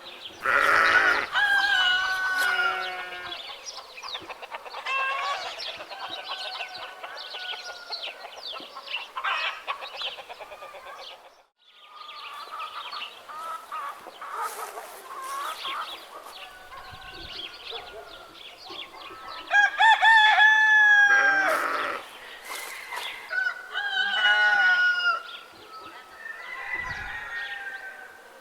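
Roosters crowing several times over steady hen clucking. The loudest crows come near the start and about two-thirds of the way through, and the sound drops out briefly near the middle.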